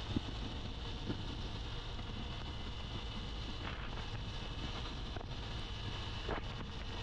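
Wind rushing over the microphone, with the running of a 125 cc single-cylinder Honda motorcycle cruising at highway speed, steady throughout, with a few faint knocks.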